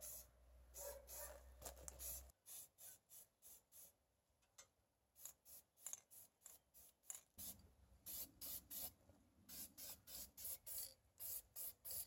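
Aerosol can of rust reformer sprayed in a rapid series of short, faint hisses, two or three a second, onto bare metal pedals.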